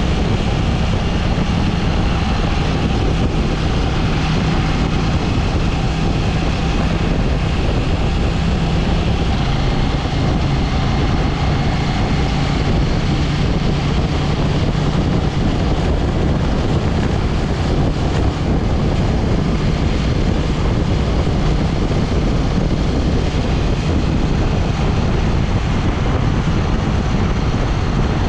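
KTM 790 Duke's parallel-twin engine running at a steady cruise, mixed with a constant rush of wind and road noise. Its pitch steps down slightly about nine seconds in.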